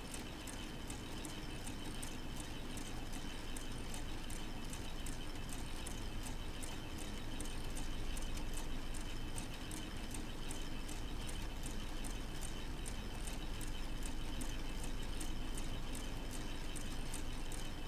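K'Nex model four-cylinder engine running, its plastic gears, rods and connectors clicking in an even rhythm of about three clicks a second over a steady thin whine and low hum.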